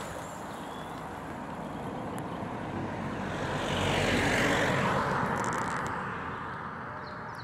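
A car driving past close by: tyre and engine noise swell to a peak about four seconds in, then fade.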